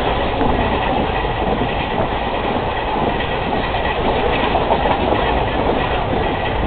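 Passenger train running along the track, heard from on board: a steady rumble with the clatter of wheels over the rails.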